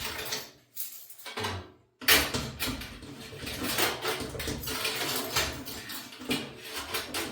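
Clattering, knocking and scraping of metal washer panels and parts handled by hand, with a sharp knock about two seconds in followed by a steady run of rattles.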